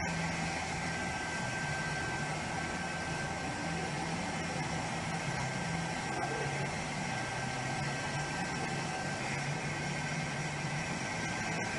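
A steady engine drone under a constant hiss, its low hum wavering slightly in pitch, with a thin steady high tone running through it.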